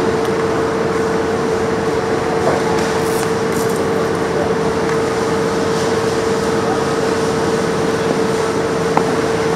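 A steady mechanical drone: loud, even noise with a constant hum running under it. A single sharp click comes near the end.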